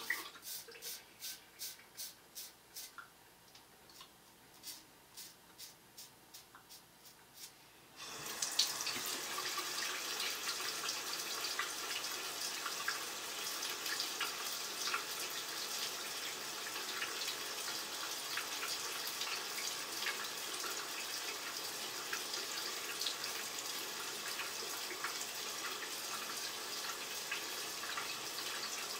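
Double-edge safety razor scraping through lathered five-day stubble in short strokes, about two a second at first, then sparser. About eight seconds in, a tap starts running steadily into the sink and keeps going, with small scrapes and ticks under it.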